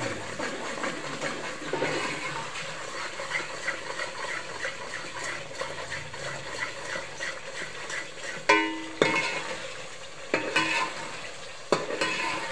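A metal spoon stirs and scrapes through masala and yogurt frying in an aluminium pot, over a continuous sizzle, with the spoon's strokes coming in a steady rhythm. Partway through, the spoon strikes the pot in a single ringing clank, and a few lighter knocks follow. This is the bhuna stage, with the yogurt being fried into the masala.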